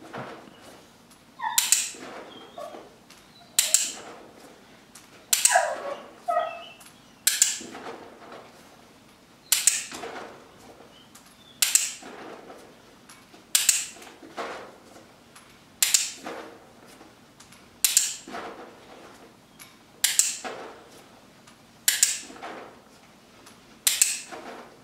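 Dog-training clicker clicked about every two seconds, a dozen sharp clicks in all. Each click marks a treat placed in a bowl in a clicker-timing drill. A dog whines faintly now and then in the background.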